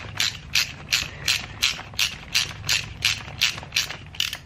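Hand ratchet clicking in steady back-and-forth strokes, about three clicks a second, as threads are worked in a brake caliper's brake-line fitting hole; the clicking stops near the end.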